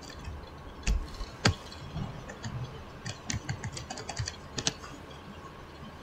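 Scattered clicks and taps of a computer keyboard and mouse. Two louder taps come about one and one and a half seconds in, followed by a run of quicker, lighter clicks.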